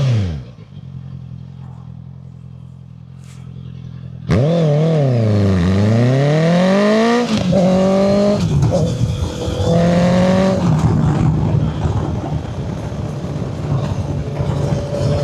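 Honda CB650F inline-four engine through a custom-made muffler. About four seconds in its note turns suddenly loud, dips and then climbs as it accelerates, stepping up through gear changes before settling into steady running.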